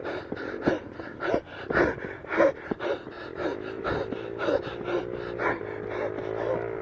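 Footsteps crunching on a dirt hill trail with heavy, panting breaths from a hiker climbing near the top of a steep hill. About halfway through, a steady low droning tone comes in and holds.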